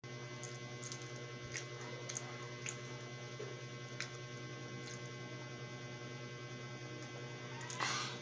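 Steady electrical mains hum on the recording, with a few faint clicks of chewing scattered through it and a short louder rush of noise near the end, as the jar of lemon water is drunk from and set down.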